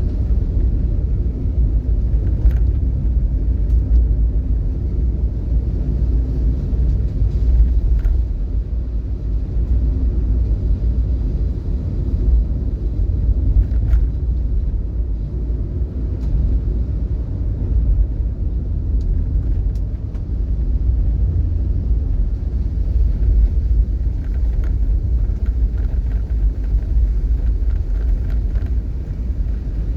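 Steady low rumble of a car on the road, with a few faint clicks.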